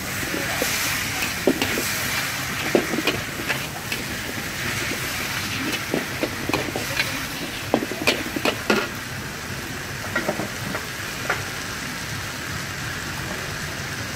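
Flat rice noodles and bean sprouts sizzling in a hot steel wok as they are stir-fried. A metal spatula scrapes and clanks against the wok now and then, with a quick run of clanks about eight seconds in.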